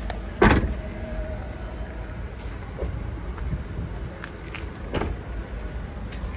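The tailgate of a Toyota Avanza shutting with a single loud thump about half a second in, over a steady low background rumble.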